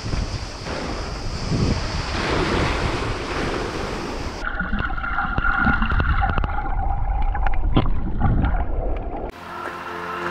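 Wind rushing over the microphone with wave noise, as on open water. About four seconds in it cuts abruptly to a different sound with a few steady tones and scattered clicks, and music begins near the end.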